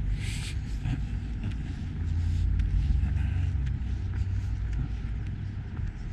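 Night street ambience while walking: a steady low rumble of distant traffic and air, with faint footsteps on the sidewalk about once a second and a brief hiss just after the start.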